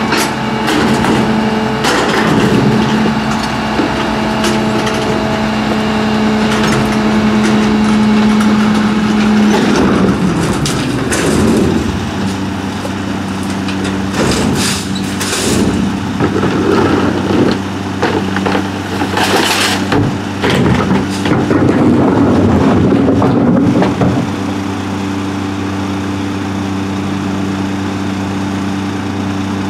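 Peterbilt 320 garbage truck's diesel engine running at raised revs, dropping to a lower pitch about a third of the way in. Through the middle come irregular clanks and crunching as the McNeilus rear-loader's packer cycles and compacts the load, then the engine settles to a steady idle.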